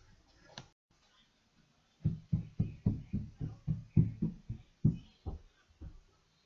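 Footsteps on a staircase: a quick, even run of about fifteen thumps, about four a second, starting two seconds in and fading toward the end.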